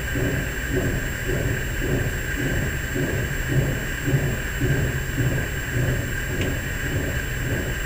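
Low, steady rumbling drone with a throbbing pulse about twice a second, the unexplained night-time "strange sound" being recorded.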